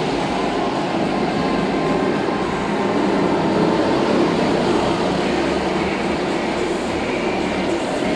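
Go-karts lapping an indoor track in a large hall, a steady rumble that carries on without let-up.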